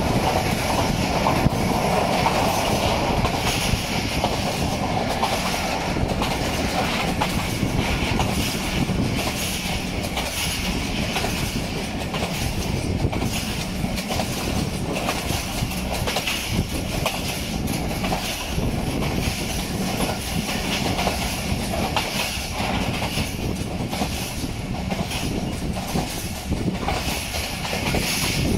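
Passenger train coaches running along jointed track: a steady rumble of wheels on rail, with the clickety-clack of the wheels passing over rail joints, heard from a moving coach.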